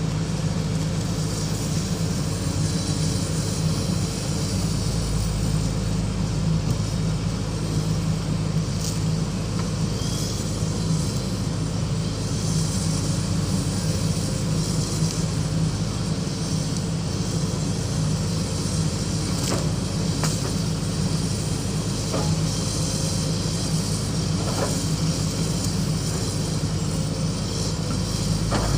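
Excavator's diesel engine running steadily, with a few short sharp knocks in the second half.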